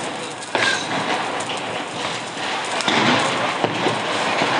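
Hand-held sparkler burning with a steady fizzing crackle and a few sharp pops.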